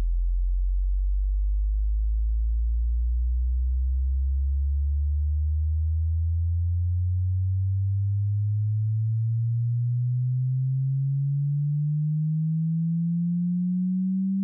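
Hearing-test frequency sweep: a single pure sine tone rising slowly and steadily in pitch, from a very deep hum to a low tone, at an even loudness.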